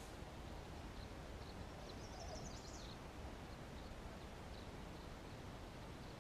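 Woodland ambience: a steady low background hiss and rumble, with a short burst of high bird chirps about two seconds in and a few faint single chirps after it.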